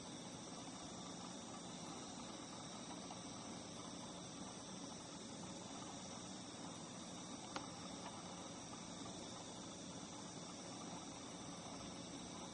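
Faint, steady trilling of singing insects at several pitches at once, without a break. One sharp click comes about seven and a half seconds in.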